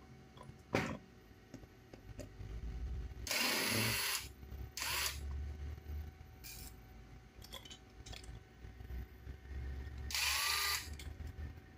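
Small electric screwdriver whirring in three short bursts as it turns the screws on an RC car's chassis and gearbox, one burst winding down in pitch as it stops. A sharp click comes under a second in.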